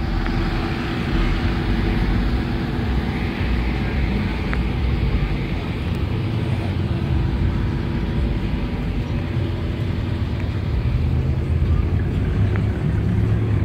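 Car engines running low and steady as cars roll slowly past, with a constant deep drone and no hard revving.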